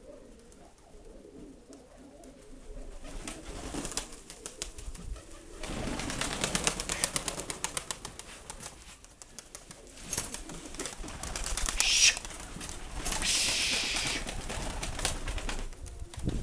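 Domestic pigeons cooing softly, then several bursts of loud rustling, crackling noise from about three seconds in.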